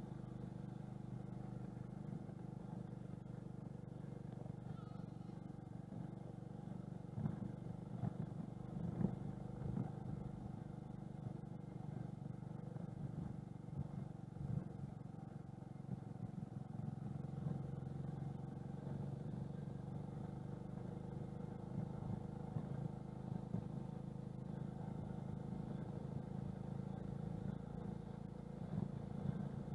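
TVS XL 100 moped's single-cylinder four-stroke engine running steadily while riding on a gravel road, with a few sharper knocks and rattles from the bumps, loudest about seven to nine seconds in.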